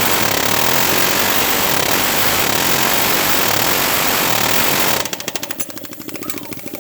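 A loud power tool runs steadily for about five seconds, then breaks into a fast rattle of short strokes as it slows and stops near the end.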